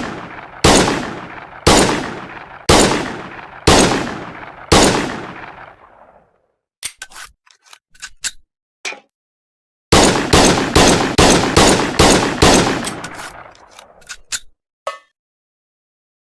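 M1911 pistol firing: five shots about a second apart, each with a ringing tail, then a few light metallic clicks of the gun being handled, then a rapid string of shots, several a second, ending in more clicks.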